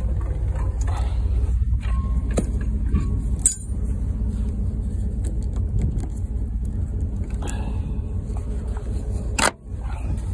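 Metal clanks from a trailer coupler and ball hitch being worked loose, one ringing clank about a third of the way in and a sharp knock near the end, over a steady low rumble.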